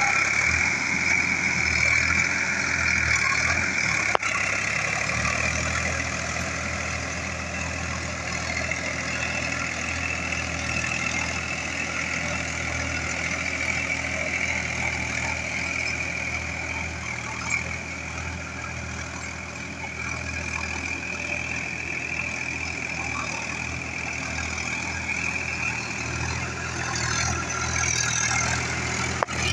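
Sonalika tractor's diesel engine running steadily under load as it drags a nine-tyne cultivator through wet, muddy ground, with a steady high-pitched whine over it. The sound drops a little in level about four seconds in.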